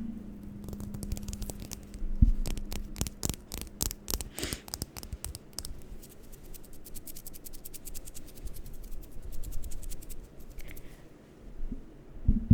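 Rapid tapping and scratching close to the microphone: a dense run of sharp clicks through the first half, then sparser, quieter scratching. A low steady hum runs under the first few seconds.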